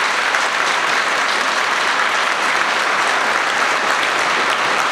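A large audience applauding with steady, dense clapping.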